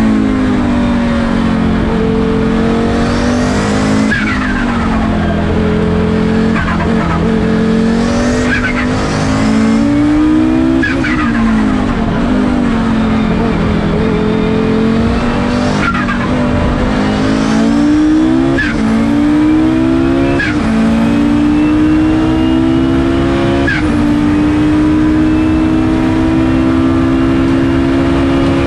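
Turbocharged Audi five-cylinder engine of a Gebhardt C88 Group C prototype, heard from the cockpit under hard racing use. Its note climbs in pitch and drops sharply at each gear change, about seven times.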